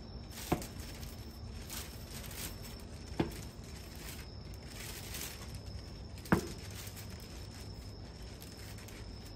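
Quiet outdoor ambience with a faint steady high tone, broken by three sharp knocks a few seconds apart, the last the loudest.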